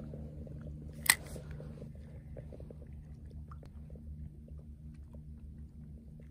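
Spinning reel and light ajing rod being handled as the line is worked. A sharp click comes about a second in, then faint irregular ticking over a steady low hum.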